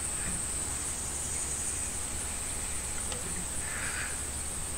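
A steady, high-pitched insect chorus from the pasture grass, unbroken throughout, over a low steady rumble.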